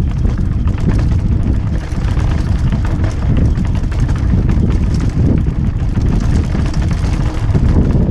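Full-suspension mountain bike rattling and clattering over rough rock on a fast descent, with many small knocks from the tyres and frame, under heavy wind rumble on the camera microphone.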